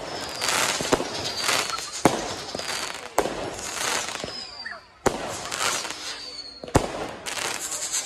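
Aerial fireworks going off: about five sharp bangs, one every second or two, with crackling and hissing between them and short faint falling whistles.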